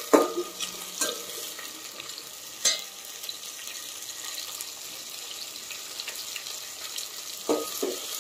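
Whole spices (cinnamon, cardamom, bay leaf, fennel seeds) frying in hot oil in a stainless steel pot, a steady sizzle. A few sharp clinks sound over it, the loudest right at the start and another a little under three seconds in.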